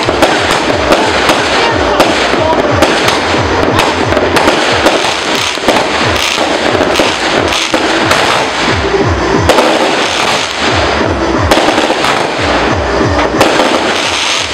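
New Year fireworks and firecrackers going off without a break, many sharp bangs and crackles packed close together.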